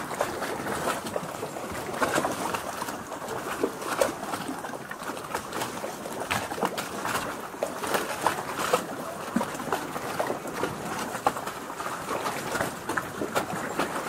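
Small harbour ambience: gentle water lapping and trickling around a wooden jetty's pilings and shoreline rocks, a steady wash with many small splashes and clicks.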